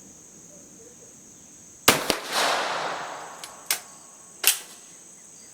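A Swiss Vetterli rifle fires one shot, with the report echoing and dying away over about a second and a half. Two sharp clicks follow as the action is worked, and the spent case does not extract. Insects chirp steadily underneath.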